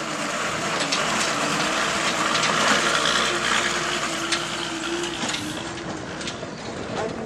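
Road noise: tyres grinding over rough gravel, mixed with the wind and engine sound of vehicles passing close, including a laden truck, with a faint engine hum wavering underneath.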